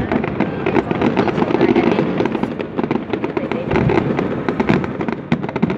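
Aerial fireworks display going off in rapid succession: a dense, continuous crackle of many small pops and bursts.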